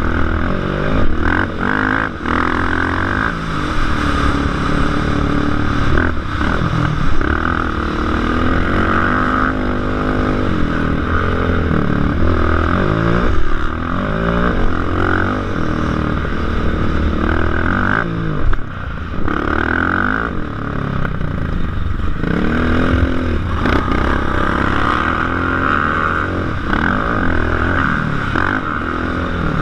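Racing ATV engine heard from on board, revving hard and falling back again and again as the rider works the throttle and gears around the dirt track, with a brief drop about two-thirds through.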